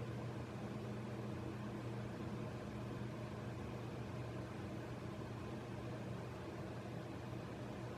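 Steady low hum over an even background hiss, unchanging throughout.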